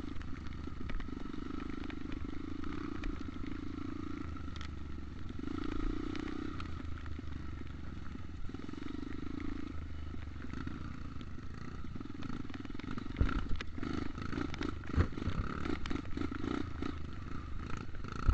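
Dirt bike engine running at low revs, swelling and easing a few times as the throttle opens. In the last few seconds it is joined by clattering knocks as the bike jolts over rough ground.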